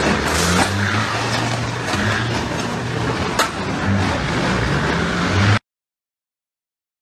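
A semi-truck's engine runs hard, its pitch rising and falling, with grinding noise and a few sharp knocks as its box trailer tips over. The sound cuts off suddenly to dead silence after about five and a half seconds.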